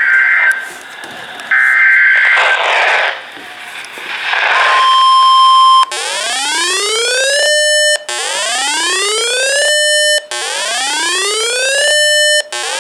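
Emergency Alert System alert tones: the screechy data bursts of an EAS header, a brief steady single-pitch warning tone, then four rising 'whoop' alarm tones, each climbing in pitch, holding for a moment and cutting off, repeating about every two seconds.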